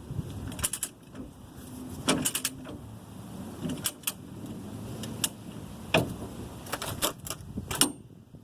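Hand tools and metal parts clinking and clacking: about a dozen irregular sharp metallic clicks and knocks, a few with a brief ring near the end.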